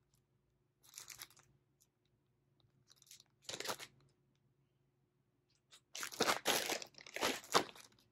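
Plastic packaging bags crinkling as they are handled and opened, in several short bursts, with the longest and loudest run in the last two seconds.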